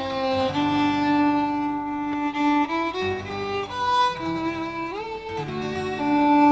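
Background music led by a violin, playing a slow melody with sustained notes.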